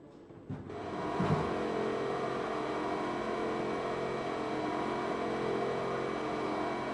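Overhead crane's electric hoist starting about a second in with a low knock, then running steadily with a hum of several steady tones as it lifts a load on a chain sling.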